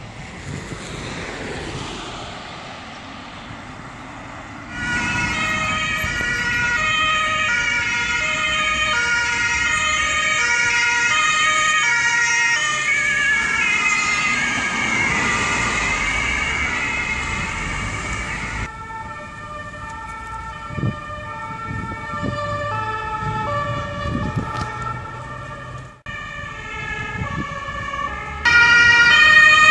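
Ambulance two-tone sirens (German Martinshorn) sounding as the vehicles drive past, stepping back and forth between two pitches. They follow a few seconds of passing-traffic noise, and cut abruptly between different vehicles, loudest near the end.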